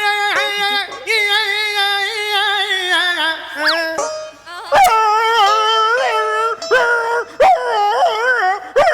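A man imitating a dog howling with his voice. A long drawn-out howl slides down at its end, and after a brief break come short wavering whimpering howls.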